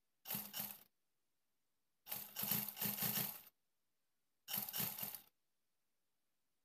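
Black sewing machine stitching an elastic waistband in three short runs, the longest about a second and a half, each a fast rattle of the needle mechanism that stops abruptly.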